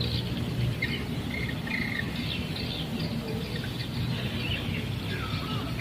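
Birds chirping and calling in short, irregular phrases, with one curved call near the end, over a steady low hum.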